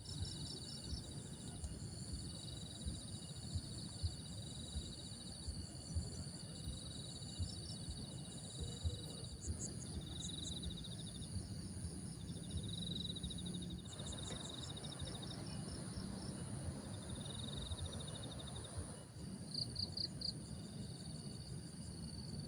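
Insects such as crickets trilling: several steady high-pitched drones overlap, with short pulsed chirp trains coming and going. Soft, irregular low ticks run underneath.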